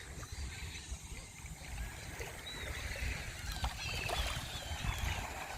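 Gentle seashore water lapping and washing, under a steady low rumble, with a few faint high chirps around the middle.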